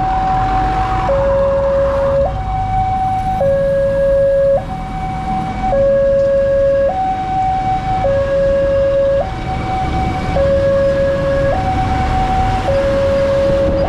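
Railway level-crossing warning alarm from the crossing post's loudspeaker: an electronic two-tone signal switching between a lower and a higher tone a little more than once a second, warning that a train is approaching. Road traffic runs underneath it.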